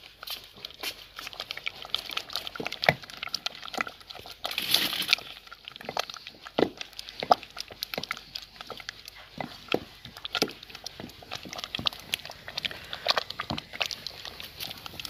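A wooden saag masher working thick, boiling mustard-greens saag in an aluminium pot. It makes an irregular run of wet squelches, knocks and pops.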